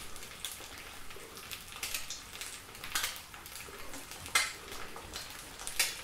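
A spatula scraping and knocking against a stainless steel mixing bowl as chopped duck livers are scooped out and spread onto toast. Three sharp scrapes stand out, the loudest a little past the middle, over a faint steady sizzle of frying.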